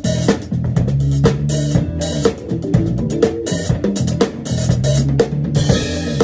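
Acoustic drum kit played live in a steady funk groove: bass drum, snare and cymbal strokes in an even rhythm.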